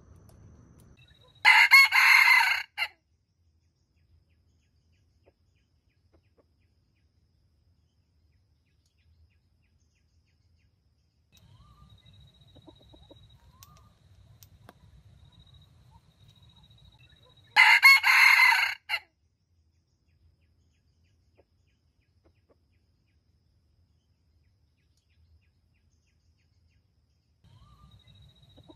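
Red junglefowl rooster crowing twice, each a short crow of about a second and a half, the two some sixteen seconds apart.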